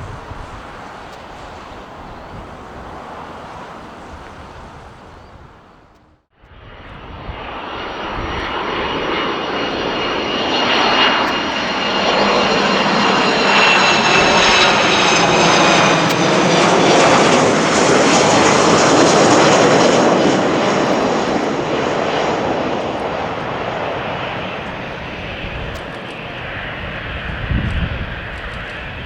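Jet airliner passing close by. After an abrupt break about six seconds in, its engine noise builds to a peak in the middle, with a high whine that glides slowly down in pitch as it goes by, then fades. A softer steady rumble comes before the break.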